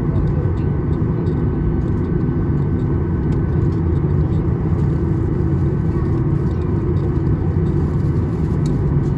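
Boeing 737-800 cabin noise while taxiing, heard inside the cabin by the wing: a steady low rumble and hum from the CFM56 engines at taxi power, with a thin steady whine above it.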